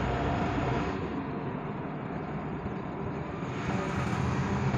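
Auto-rickshaw's small engine running steadily as it drives along, with road and traffic noise, heard from the passenger seat inside the open cabin.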